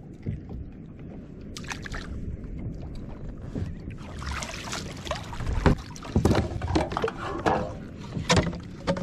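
Water sloshing and splashing against the side of a plastic fishing kayak as an arm reaches down into the sea, with several sharp knocks of gear being handled against the hull. The splashing grows louder about four seconds in.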